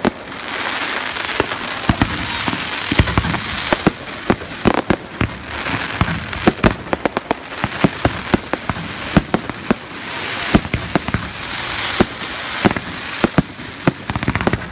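Fireworks display: a rapid, irregular string of sharp bangs from bursting aerial shells and rising effects over a continuous crackling.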